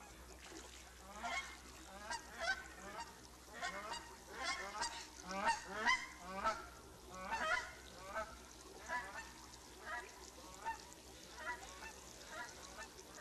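Bald eagles calling: a long series of short, high calls at about two a second, starting about a second in.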